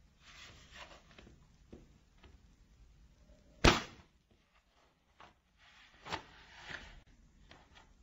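A DVD disc handled in a black plastic DVD case: soft plastic scrapes and taps of the disc against the case, with one sharp, loud click a little before halfway as the disc snaps on the case's centre hub.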